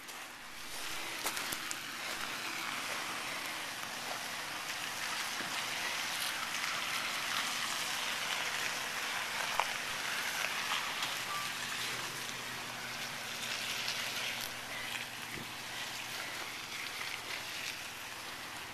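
Jeep Wrangler Rubicon creeping over wet sand and gravel: a steady hiss of its tyres on the wet ground, with the low hum of its straight-six engine coming in during the second half.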